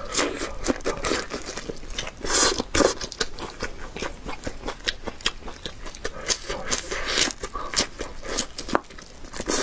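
Close-miked biting and chewing of a crispy-edged fried egg: a rapid run of sharp crunches, with louder bites about two and a half and seven seconds in.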